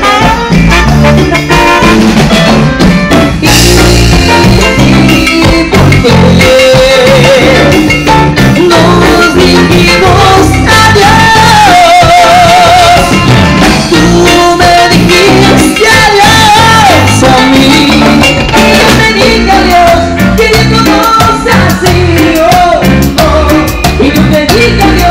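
Live band playing loud: two saxophones, a five-string electric bass and a drum kit, with a wavering melody line around the middle.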